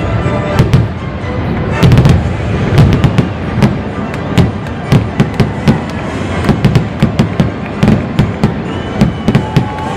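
Fireworks going off in a dense barrage: rapid sharp cracks and bangs over repeated low booms, with music playing underneath.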